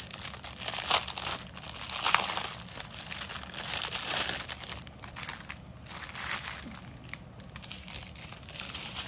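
Small plastic bags of diamond-painting drills crinkling irregularly as they are handled, the crinkling heaviest in the first half.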